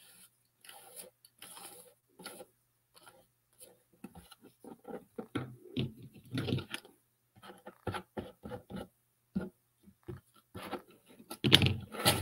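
Hands handling a cardboard box and craft tools on a cutting mat: irregular small taps, scrapes and rustles, with a louder knock about six and a half seconds in and another near the end.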